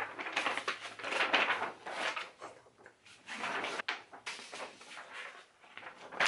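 Sheets of paper rustling and crinkling as they are handled and held up, in irregular swells, with one sharp click a little past the middle.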